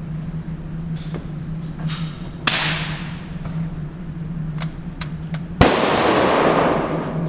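Two handgun shots about three seconds apart, each followed by a long echoing tail, with a few fainter pops in between and a steady low hum underneath.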